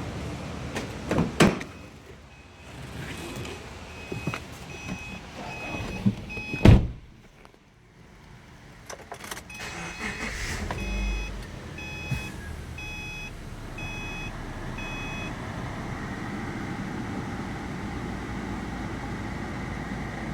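A 2010 Subaru Forester's warning chime beeps repeatedly, a little under two beeps a second, with a pause in the middle. A loud thump like a car door shutting comes about a third of the way in, and a steady low running noise fills the second half.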